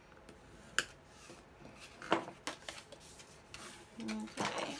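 Scoring stylus drawn along a groove of a scoring board through cardstock, a soft scraping rub, with a few sharp clicks and taps as the card is handled. Near the end the card is lifted and slid off the board.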